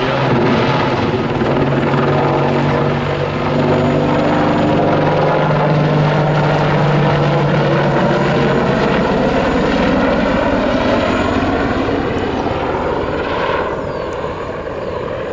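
Boeing AH-64 Apache attack helicopter passing overhead, its main rotor and twin turboshaft engines running loud and steady. In the last couple of seconds the pitch drops and the sound fades as it moves away.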